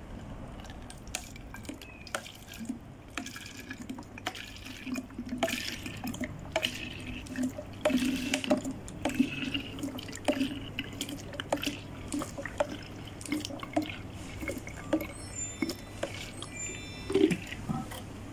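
Vinegar glugging and dripping in irregular drops from an upturned bottle's flip-top spout into a plastic foam-sprayer bottle, busiest around the middle.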